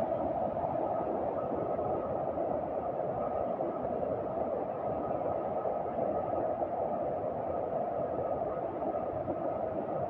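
Steady rush of a tall waterfall's falling water (about 110 m high), heard nearby as an even noise without breaks.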